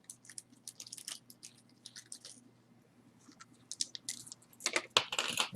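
Costume jewelry and its packaging being handled: scattered small clicks and light crinkling, busiest near the end.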